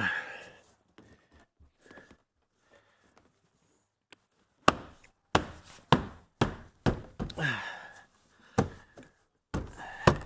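Hand striking a Mercedes W163 rear door trim panel again and again, a run of sharp thumps that starts about halfway through and comes a few times a second: the panel's plastic retainer clips being knocked home into the door.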